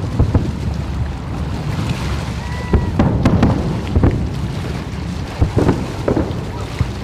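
Aerial fireworks shells bursting in an irregular run of booms and cracks, several close together, over a steady low rumble.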